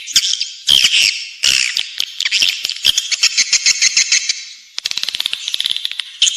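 Recorded swiftlet calls from a lure track: dense, rapid high-pitched twittering chirps and clicking trills in runs with brief breaks. This is the sound played to draw swiftlets to roost and nest in a swiftlet house.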